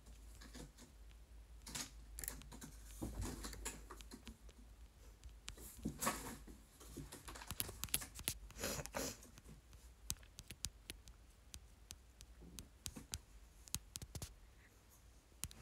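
Light, irregular clicks and rustles of hands working close to the microphone, fingers fixing and smoothing hair.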